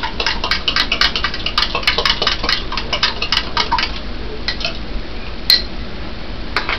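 A metal fork whisking yeast into warm water in a drinking glass, its tines clinking quickly against the glass. The stirring slows about four seconds in, leaving a few scattered clinks and one sharper one.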